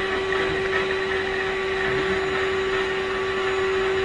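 Canister vacuum cleaner running steadily, its motor giving a constant whine over an even rushing of air.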